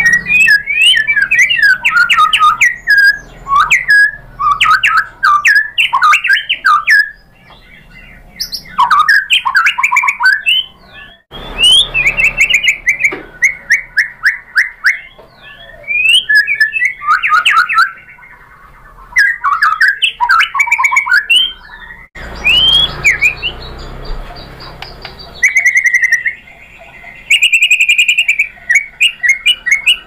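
White-rumped shama (murai batu) singing in bouts of fast, varied whistled phrases, with runs of quickly repeated notes, broken by short pauses.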